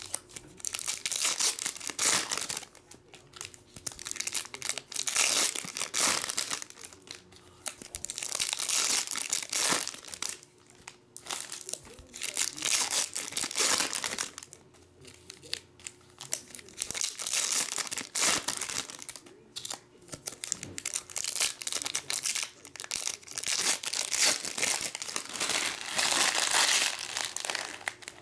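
Foil wrappers of Bowman Chrome trading card packs being torn open and crumpled by hand, pack after pack, in repeated bursts of crinkling with short pauses between.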